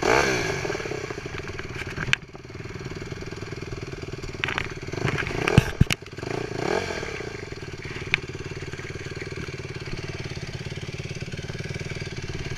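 Dirt bike engines idling close by. The revs rise and fall briefly at the start and a few times in the middle, then settle to a steady idle. A few sharp knocks are heard near the middle.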